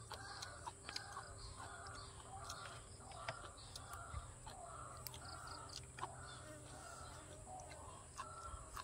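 Faint bird calls, short and repeated about twice a second, with a few sharp clicks among them.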